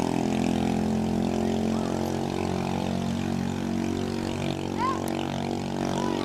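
Engine of a small wooden racing boat running steadily at speed across open water.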